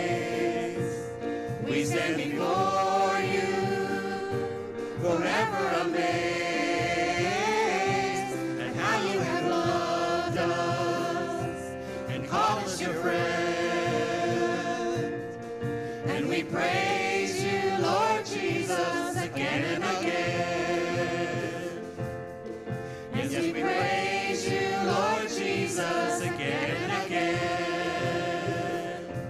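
A small praise team of men and women singing a worship song together into microphones, phrase after phrase with no break.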